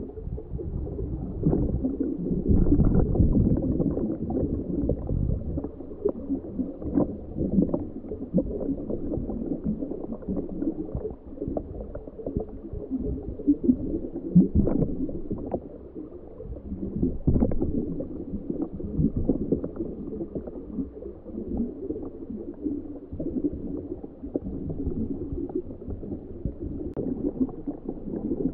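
Muffled underwater gurgling and rumbling with irregular crackles and pops, heard through a homebuilt ROV's sealed camera housing; the sound is dull, with nothing high-pitched.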